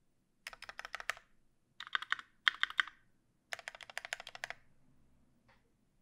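Fast typing on a custom QXP mechanical keyboard with a brass plate, lubed Tangerine linear switches with Cherry top housings, and GMK keycaps. It comes in four quick bursts of rapid clicking keystrokes, then one lone keystroke near the end.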